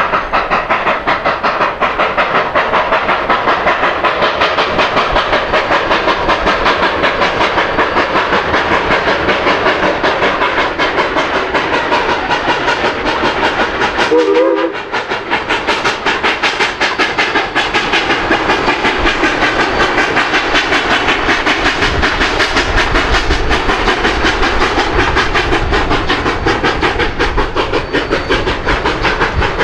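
A running train: a steady, fast rhythmic clatter throughout, broken about halfway by a short tone and a brief drop in level.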